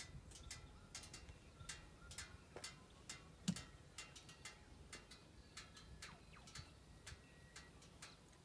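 Near silence, broken by faint, irregular ticking clicks, a few each second.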